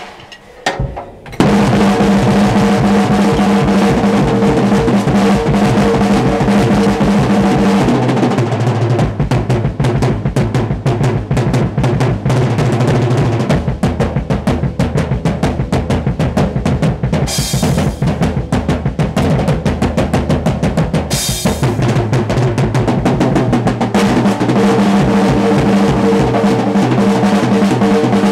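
Acoustic drum kit played in a fast, loud solo: dense strokes and rolls across snare, toms and bass drum, starting about a second in.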